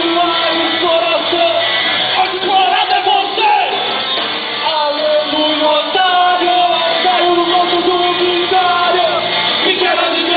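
A band playing loud live rock music, with voices yelling over the instruments.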